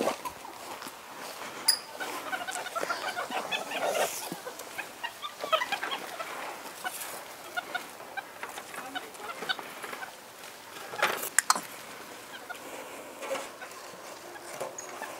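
Capuchin monkeys chattering with many short, scattered chirps and clucking calls. A few sharp clicks come about two seconds in and again around eleven seconds in.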